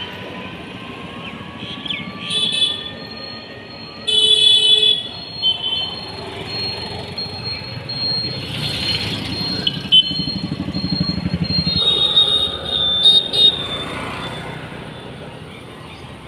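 Town street traffic: light road noise with vehicles passing and a motorbike engine going by about two-thirds of the way through. Horns toot briefly about 2 s in, more loudly for about a second at 4 s, and in a few quick beeps near 13 s.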